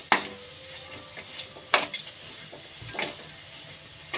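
Wheat flour halwa sizzling in ghee in a pan while a metal spatula stirs it, scraping sharply against the pan three times. The halwa is being fried until the ghee separates, the last stage before it is done.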